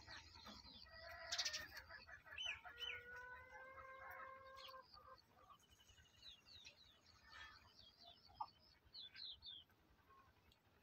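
Faint chirping and short whistled calls of small birds, busiest in the first half. A single short click about a second and a half in is the loudest moment.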